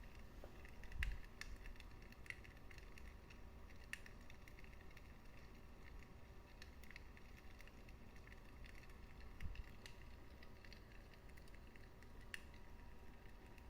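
Wood fire in a fireplace crackling faintly: irregular small pops and snaps over a low steady rumble, with a soft thump about a second in and another later on.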